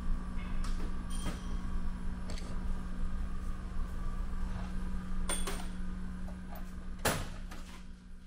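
Steady mechanical hum with a low rumble, broken by scattered knocks and clanks; the loudest clank comes about seven seconds in, and the sound fades out at the very end.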